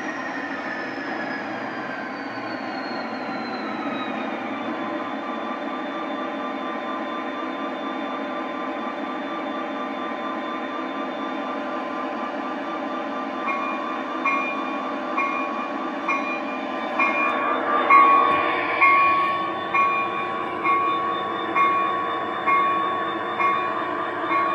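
Simulated EMD 16-645E3 diesel locomotive sound from a Zimo sound decoder, played through small loudspeakers inside a G-scale GP40 model. The engine runs steadily, with a whine that falls in pitch over the first four seconds and then holds. About halfway through, a ringing tone starts repeating a little faster than once a second.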